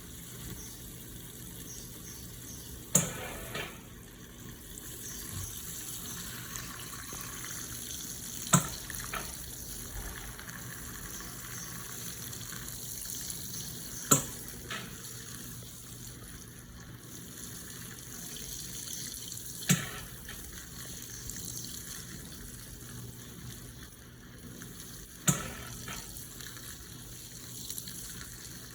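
Electrolux LPE16 washing machine filling with water: a steady rush of water, with a sharp knock about every five and a half seconds, each followed by a fainter one.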